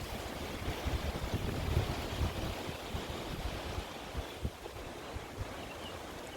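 Wind buffeting the microphone outdoors, with uneven low rumbling gusts over a steady hiss.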